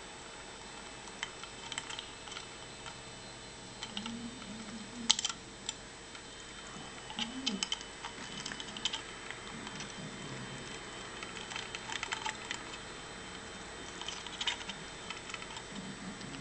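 African grey parrot's beak clicking and tapping irregularly as it drinks, with a sharper click about five seconds in.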